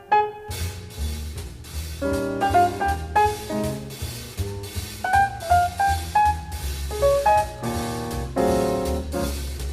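Jazz instrumental music: a drum kit with cymbals kicks in about half a second in under piano notes and chords, with a steady beat.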